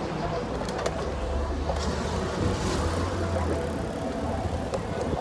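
City street traffic noise: car and truck engines running, with a low steady engine hum through the middle.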